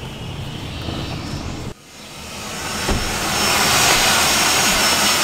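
A low vehicle rumble that cuts off abruptly, then jet engine noise: a rushing hiss with a steady high whine that grows louder over a couple of seconds and holds.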